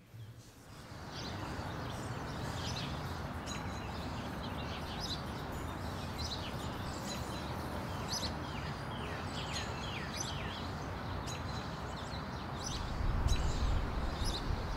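Small birds chirping over and over, short falling chirps several times a second, over a steady hiss of outdoor ambience. A low rumble joins near the end.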